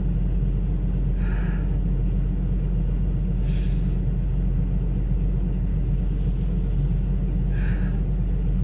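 Steady low rumble of a semi-truck's diesel engine idling, heard inside the cab. Three short breaths cut through it.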